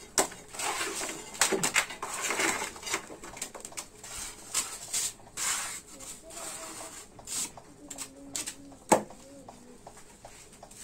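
Short scraping strokes and light clicks of hand tiling work on ceramic wall tiles, with one sharp knock about nine seconds in.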